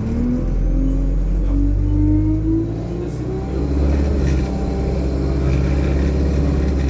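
Alexander Dennis Enviro200 single-deck bus under way, its drivetrain giving a whine that rises in pitch over the first couple of seconds. The whine drops about three seconds in, and the bus settles into a steady engine rumble with a faint high-pitched whine above it.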